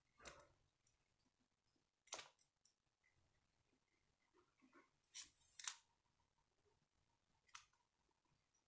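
Near-silent room with a few faint pen-on-paper scratches from handwriting: short strokes a couple of seconds apart, and a longer pair about five seconds in.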